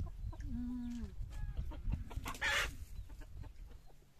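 Chickens clucking, with one longer held call about half a second in and a harsh squawk about two and a half seconds in, over a low rumble.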